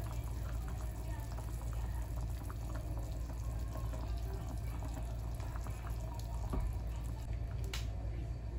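Beef stew simmering in a frying pan: small bubbling pops and drips from the sauce over a steady low hum. There is a single light tap near the end.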